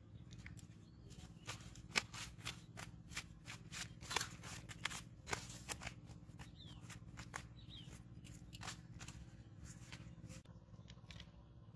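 A freshly landed fish flapping and slapping on a jute sack: a run of quick, sharp taps, densest in the first half and thinning out later.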